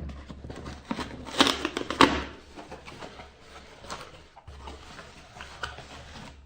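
Packaging and boxes being handled on a table: a run of rustles and small clicks, with two sharp knocks about a second and a half and two seconds in, then quieter rustling.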